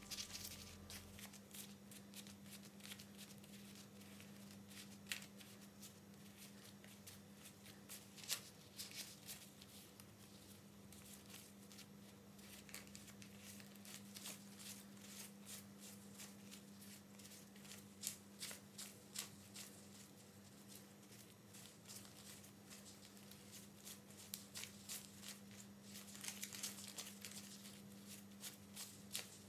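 Worn paper banknotes (Indonesian 5,000-rupiah notes) rustling and flicking faintly as they are counted and sorted by hand, with soft crackles scattered throughout over a low steady hum.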